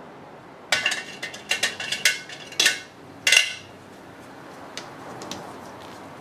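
Metal hand tools clinking and clattering against each other: a quick run of sharp, ringing metallic knocks in the first half, the loudest about three seconds in, then a couple of faint ticks.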